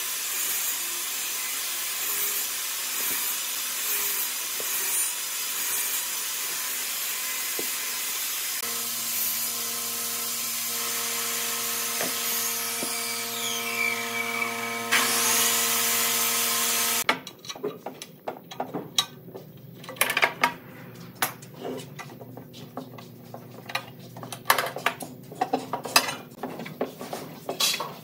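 A workshop power tool or machine runs steadily for about the first 17 seconds. It starts as an even hiss, then changes to a steady motor hum with several held tones, and cuts off abruptly. After that, wooden blocks and metal bar clamps are handled on a workbench, giving scattered knocks and clicks.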